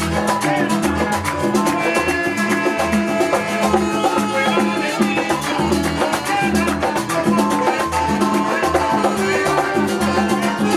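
Latin dance music with a pulsing bass line, held melodic notes and busy percussion keeping a steady beat.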